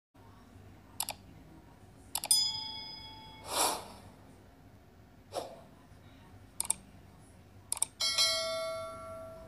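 Subscribe-button animation sound effects: sharp mouse clicks, a short chime, two swooshes, and near the end a notification-bell chime that rings on and slowly fades.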